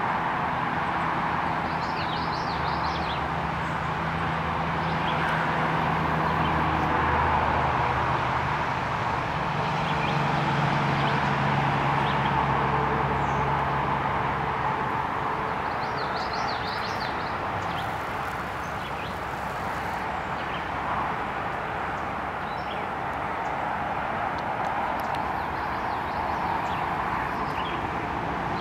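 Steady outdoor background noise with a low motor hum through the first half. Brief bird chirps come about two seconds in and again around sixteen seconds.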